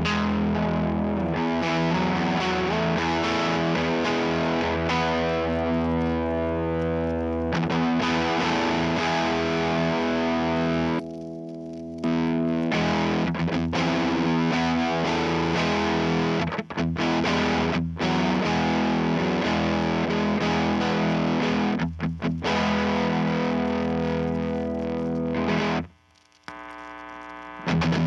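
Electric guitar, a Squier Jazzmaster, played through a Skreddy Screwdriver fuzz stacked into a Timmy overdrive: sustained distorted chords and riffs with a higher-gain, edgy tone. The playing drops away briefly about eleven seconds in and stops for a moment near the end.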